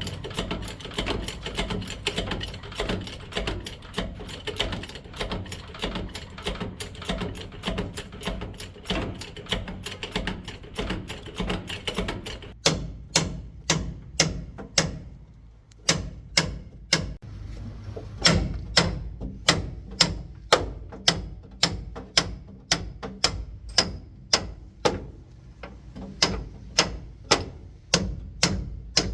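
Metal work on a truck's leaf spring: for about the first twelve seconds a fast, dense metallic rattling, then, from about twelve seconds in, regular sharp hammer blows on steel, about one and a half a second, each ringing briefly.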